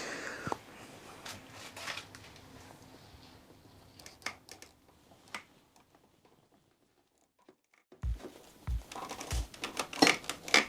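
Scattered light clicks and knocks of metal motorcycle fork and triple-clamp parts being handled and fitted by hand. A couple of seconds of silence fall past the middle, then a few short low thumps and more clicks near the end.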